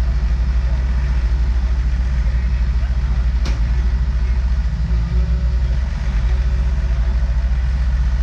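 Heavy excavator diesel engine running steadily with a deep, fast throb, working to pull a sunken excavator out of the mud on a chain. A single brief sharp click about three and a half seconds in.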